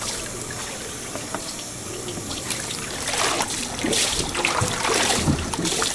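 Water pouring and splashing into a large tub of water as a giant octopus is rinsed, with water streaming out of its hanging head; the splashing grows louder about halfway through.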